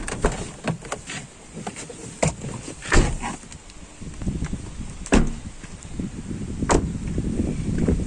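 A car door being opened and shut: a run of clicks and knocks over a low rumble, with the loudest thumps about three, five and seven seconds in.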